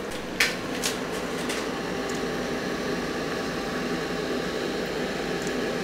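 Small CNC milling machine running steadily as its end mill cuts a block of plastic (thought to be ABS): an even mechanical hum and hiss. Three sharp ticks come in the first second and a half.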